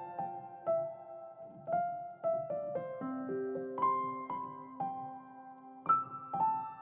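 Background music: a gentle solo piano melody, single notes struck one after another with a long held low note in the middle.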